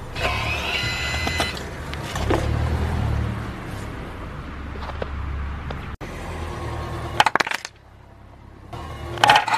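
Car tyres rolling slowly over plastic objects on snowy ground, the car's low rumble underneath, with a high squeak near the start as the plastic is pressed and a burst of sharp cracks and crunching as it breaks about seven seconds in and again near the end.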